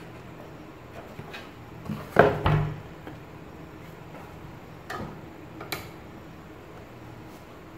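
Riden RD6018 bench power supply in its S800 metal case set down on a cardboard box: two heavy knocks close together about two seconds in, then two lighter knocks a few seconds later as the box is handled.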